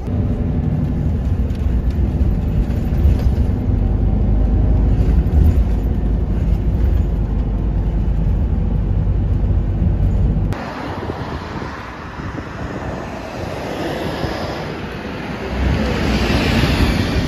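Engine rumble and road noise heard from inside a moving Keihan city bus. About ten seconds in, a cut gives way to lighter outdoor street noise, with a bus passing close by near the end.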